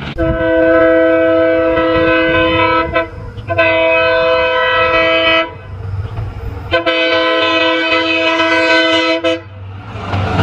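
Indian Railways locomotive horn sounding three long blasts, the first two close together and the third after a short gap, over the low rumble of the train.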